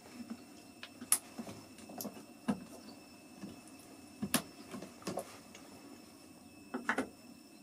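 Short clicks and knocks of power-cable plugs being handled and pushed into the sockets of stacked Pylontech US2000 battery modules while jumper cables are fitted between them. The clicks come scattered, the sharpest about four seconds in, and a quick cluster comes near the end.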